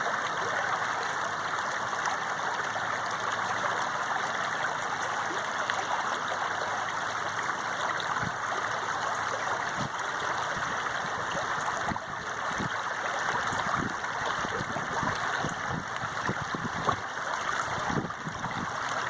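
Running water flowing steadily like a small stream, with low gurgles bubbling up through the second half.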